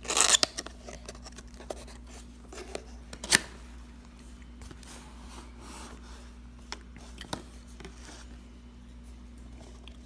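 A cardboard product box being opened by hand: a short loud scratchy burst as the seal is broken, then light handling of the cardboard and packaging with scattered ticks and one sharp snap about three seconds in.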